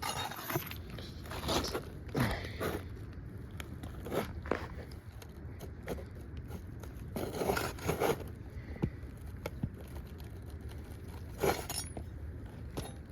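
Scraping and crunching under roof shingles as nails are worked loose and popped out: irregular scrapes with a few sharper clicks, the loudest about 2, 4, 7 to 8 and 11 seconds in.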